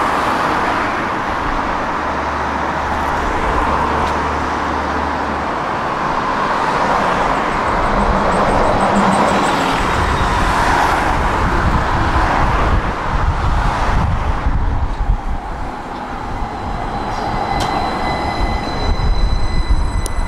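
Street traffic passing, with a steady hiss of car tyres. In the last few seconds a tram rumbles in to the stop, and several high steady whining tones come from its drive and brakes as it slows.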